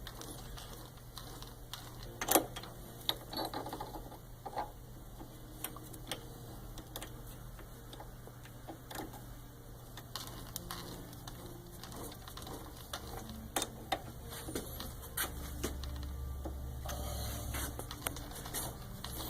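Scattered metallic clicks and knocks from a lathe chuck being loosened and a drill bit reset and re-tightened in its jaws, with a faint steady low hum underneath.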